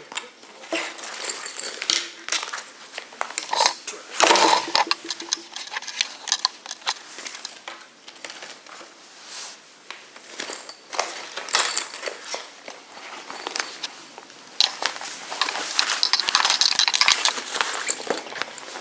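Hands unpacking and handling a magnetic motorcycle tank bag: rustling of packaging and fabric with scattered light clicks and knocks, and a denser, louder stretch of rustling near the end.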